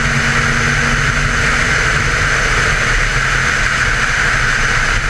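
Wind rushing hard over a camera mounted on the outside of a Mustang at highway speed, with the car's engine running at a steady pitch underneath.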